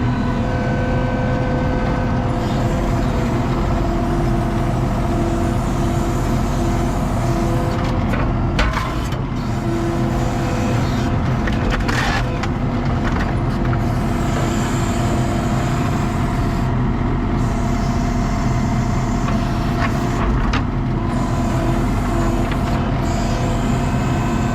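ASV RT-40 compact track loader's diesel engine running steadily under work while its grapple handles logs from a wood stack, with wood knocking and cracking now and then. The loudest knock comes about eight and a half seconds in.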